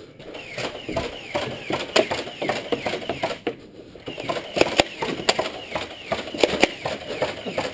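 Nerf blasters being primed and fired during a dart battle: a busy run of irregular sharp clicks and knocks, with short squeaky chirps in between.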